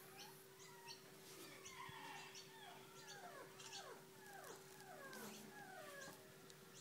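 Faint, repeated short animal calls, each sliding down in pitch, over a steady faint hum.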